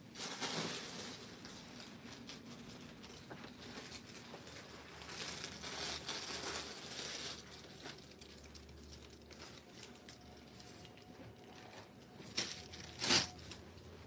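Rustling of cloth and crinkling of plastic as printed lawn suit fabric is gathered and folded and a plastic-wrapped suit packet is handled, in irregular spells, with two sharp crinkles near the end, the second the loudest.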